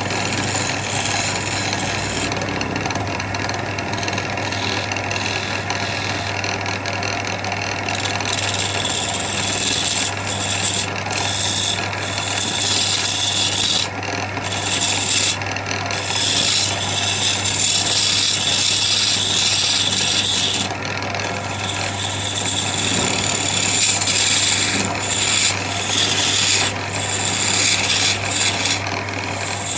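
A power tool abrading wood: a steady motor hum under a harsh, high rasping noise that lets up briefly a few times as the tool comes off the surface.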